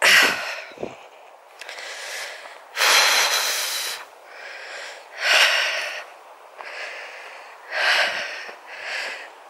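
A hiker's heavy breathing while climbing a steep hill path: loud, hoarse breaths close to the microphone, one every couple of seconds, with a couple of soft thumps near the start.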